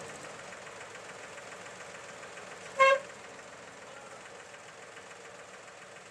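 Tractor diesel engine running steadily, with a single short, loud horn toot about three seconds in.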